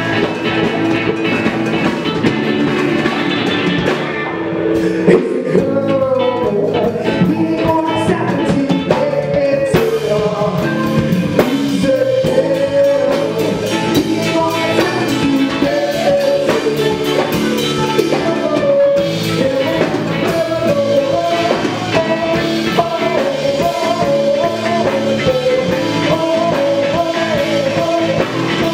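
Live indie rock band playing with electric guitars and a drum kit, with a singer's voice over it.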